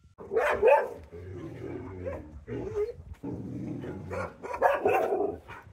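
Dogs barking back and forth, a quick run of short barks and yelps.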